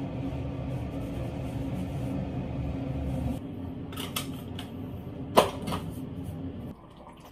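A steady background sound stops about three and a half seconds in. Then come several sharp plastic clicks and knocks as a small container is handled and opened at a bathroom sink, the loudest about five and a half seconds in.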